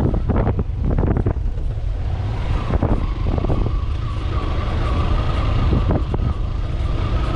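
Motorcycle engine running on the move, with wind rumbling on the microphone.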